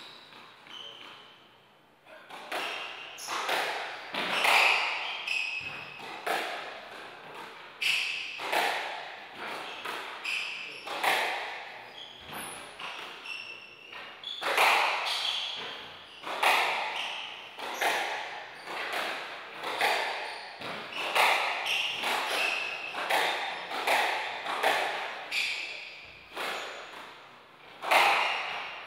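A squash rally starting about two seconds in: the ball is hit by the racquets and smacks off the walls roughly once a second, each hit echoing around the court. Shoes squeak briefly on the wooden floor between shots.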